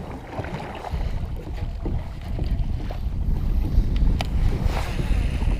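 Wind buffeting the microphone as a low, fluttering rumble that starts about a second in, with choppy lake water slapping against a kayak hull and a few sharp taps.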